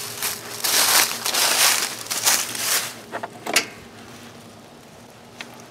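Footsteps crunching through dry fallen leaves for a few seconds, then a few sharp knocks about three and a half seconds in as someone climbs onto a compact tractor, followed by a quieter stretch.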